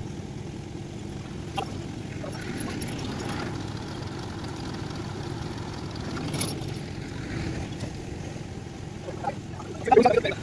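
Steady low rumble of a running vehicle engine, with a short louder sound near the end.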